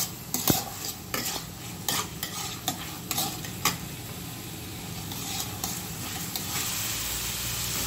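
Chopped onion and capsicum sizzling in hot oil in a kadhai while being stirred with a spatula. Sharp clicks and scrapes of stirring come through the first half, then a steady sizzle.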